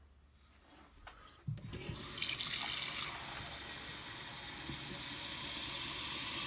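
Kitchen faucet turned on about a second and a half in, after a light knock or two, then running a steady stream of water into a glass Pyrex measuring cup, growing slightly louder as the cup fills.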